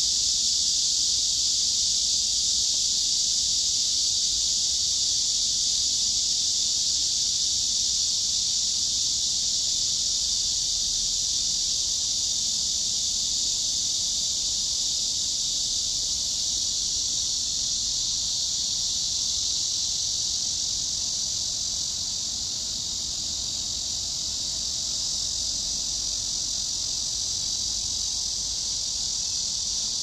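A loud, steady, high-pitched insect chorus that holds without a break.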